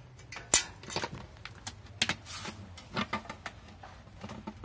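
Irregular knocks and scraping as a sulcata tortoise rams a whole papaya with the pointed front of its lower shell, pushing the fruit against a plastic tub to split it open.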